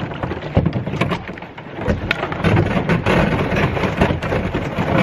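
Thin skim ice on a lake cracking and shattering against a canoe as it is paddled through. The ice gives a dense, continuous run of crackles, snaps and clinks.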